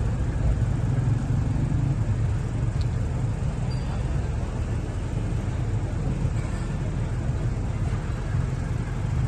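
Steady low rumble of road traffic running past, with no distinct strokes or knocks standing out.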